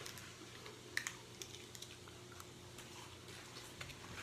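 Faint crunching of black bean tortilla chips being chewed, a few scattered crisp crackles, the clearest about a second in.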